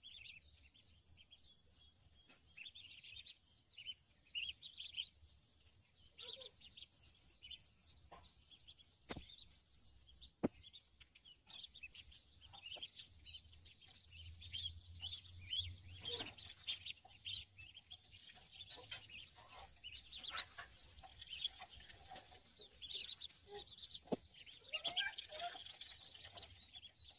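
A flock of ducklings peeping: many short, high, thin calls overlapping without a break, with a couple of sharp clicks near the middle.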